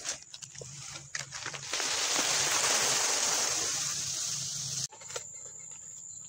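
A few light clicks and rustles, then about three seconds of loud, even rushing noise that stops abruptly. After it comes a faint, steady, high-pitched insect drone with a few soft clicks.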